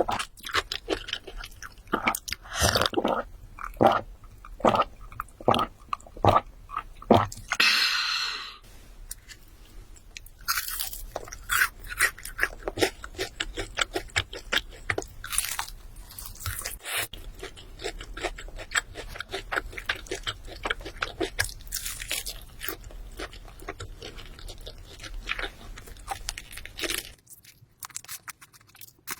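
Close-up crunching and chewing of crispy food, heavy crackly bites through the first several seconds, then steadier, softer chewing.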